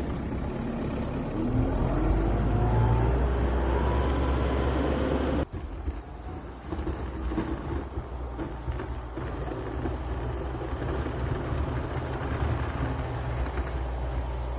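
A snow-clearing vehicle's engine running, its pitch rising and falling over the first few seconds as it works. About five seconds in the sound breaks off abruptly, and the engine then runs on steadier and a little quieter.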